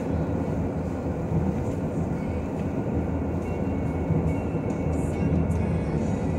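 Strong wind in a desert sandstorm: a steady low rumble of wind blowing across the microphone.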